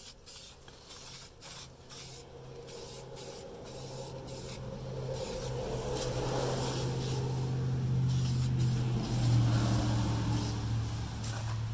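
Aerosol can of Dupli-Color fabric paint hissing in a series of short sprays. From about four seconds in, a low engine drone builds underneath and becomes the loudest sound.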